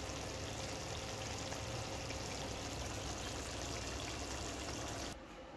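Curry simmering and sizzling in a karahi and a clay pot on a gas stove: a steady hiss that drops away near the end.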